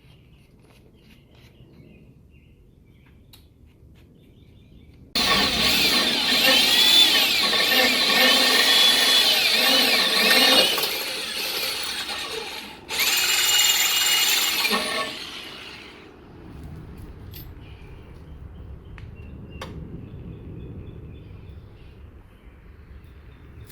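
Power drill drilling holes into a truck bumper: the drill starts suddenly about five seconds in and runs with a wavering whine, stops briefly, then runs a second short burst and winds down.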